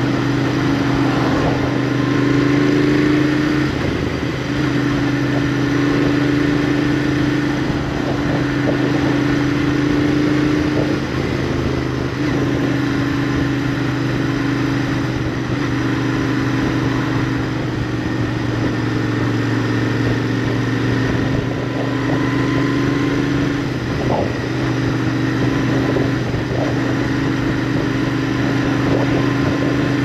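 Royal Enfield Interceptor 650's parallel-twin engine and exhaust running under way at a steady cruise. The note dips and steps a few times as the throttle eases and opens again.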